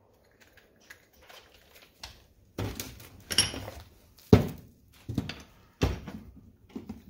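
A run of separate knocks and clunks from workbench handling: a cordless drill with a hole saw being set down on the bench, and a 3-inch PVC pipe being loosened from a cast-iron bench vise and handled. The loudest clunk comes a little over four seconds in.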